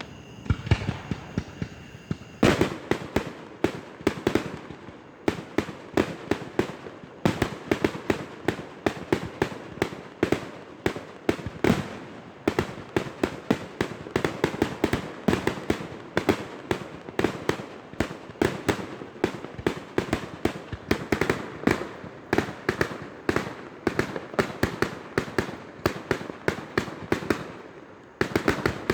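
Fireworks display: a rapid, continuous barrage of bangs, several a second, easing off briefly near the end.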